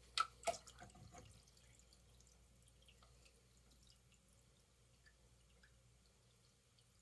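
Water dripping into a hydroponic garden's reservoir: two sharp plops near the start, a few smaller drips just after, then only faint occasional drips.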